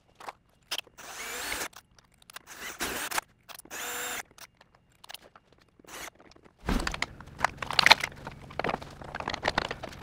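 Power drill running in several short bursts with a wavering whine, drilling out the pop rivets on a truck bumper's front license plate mount. From about two-thirds of the way in, irregular knocking and clatter of metal parts being handled.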